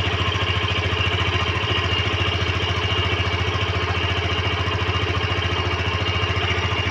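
Yamaha FZ15's single-cylinder engine idling steadily, with a light ticking mixed in. The owner likens the tick to valve or cam-chain noise and suspects it comes from the engine being overdue for its first service and oil change.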